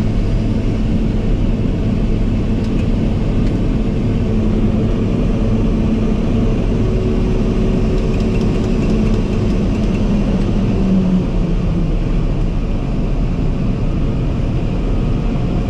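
New Holland CX5090 combine harvester running steadily under load while unloading corn into a tractor trailer. One humming tone in the noise drops away about eleven seconds in.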